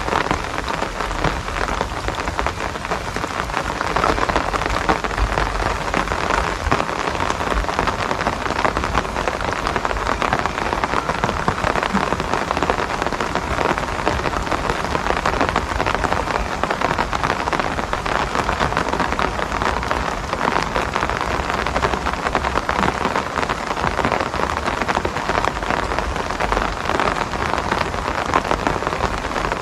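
Steady rain falling, a dense patter of drops that keeps up evenly without a break.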